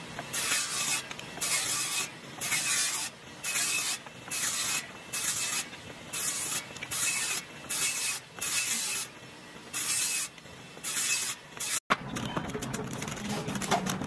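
A power saw cutting wood in a quick series of short passes: rasping bursts of about half a second each, roughly one a second. About two seconds before the end the bursts stop and give way to a steady light clatter.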